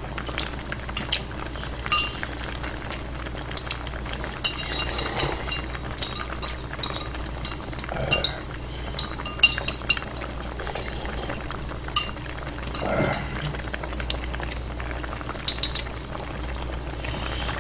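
Stainless steel chopsticks and spoon clinking against a ceramic bowl and an aluminium pot of kimchi stew, many light ringing clinks scattered throughout. A steady low hum sits underneath, with the stew faintly simmering on the burner.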